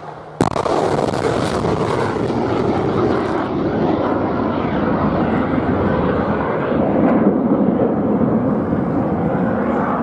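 A surface-to-air missile launching from a tracked launcher: a sharp blast about half a second in, then the steady rushing noise of its rocket motor as it climbs away. The hiss thins after a few seconds.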